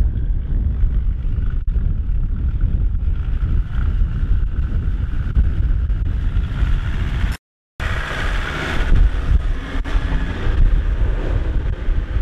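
Wind buffeting the microphone over a Land Rover Defender's diesel engine pulling slowly across rough ground. The sound drops out completely for a moment about halfway through. After that the engine and tyres are heard closer, with the wheel throwing up grass.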